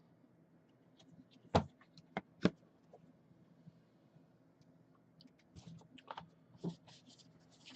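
Trading cards in plastic penny sleeves being handled and sorted on a table: three sharp clicks about two seconds in, then a run of small clicks and rustles near the end.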